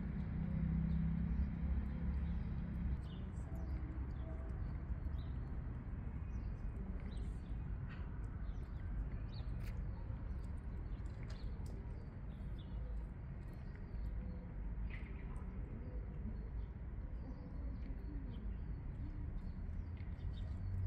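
Outdoor ambience: a steady low rumble with small birds chirping briefly and irregularly.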